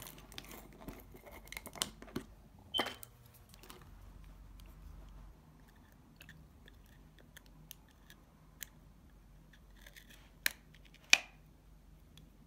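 Small plastic clicks and scrapes of an acrylic nail powder jar being unscrewed and handled. There is a run of sharp clicks in the first few seconds and two louder clicks near the end.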